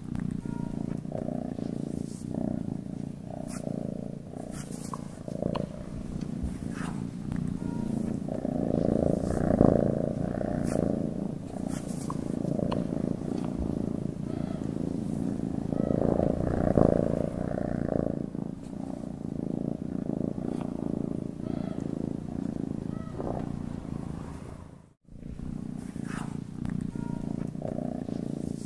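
Domestic cat purring continuously, a low, pulsing rumble. It grows louder twice, about a third of the way in and again just past the middle. It cuts out for a moment near the end, then carries on.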